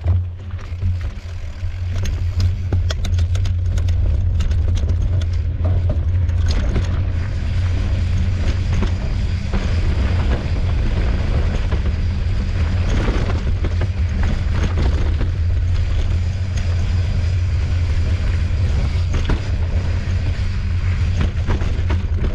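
Mountain bike riding down a rocky dirt trail: tyres crunching over stones, and the bike rattling and clattering with many sharp knocks, over a steady low rumble.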